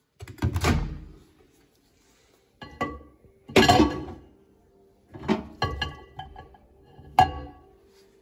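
Dishes and glassware clinking and knocking in a string of separate hits, each ringing briefly, the loudest about halfway through.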